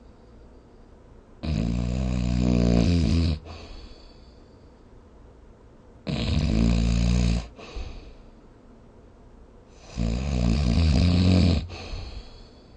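Snoring during sleep: three long, rattling snores about four seconds apart, each lasting a second and a half to two seconds.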